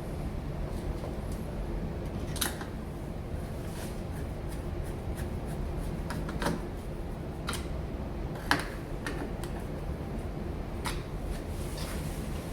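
Scattered clicks and light knocks of smart-lock parts being handled and fitted onto a door, with four sharper clicks spread through, over a steady low hum.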